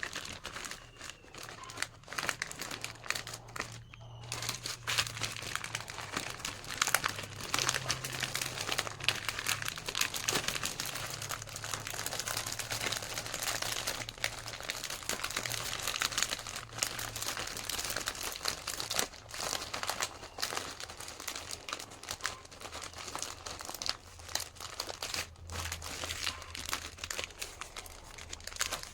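Plastic snack packets and wrapping crinkling and rustling continuously as they are handled and packed, over a faint steady low hum.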